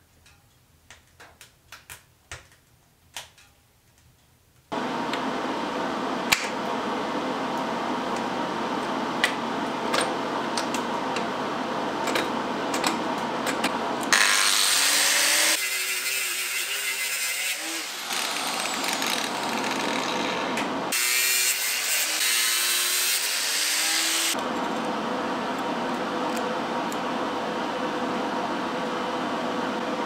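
A few sharp clicks from a car gear lever being worked by hand, then a Makita angle grinder starts about five seconds in and runs steadily, its thin disc biting into steel twice with a louder, harsher hiss.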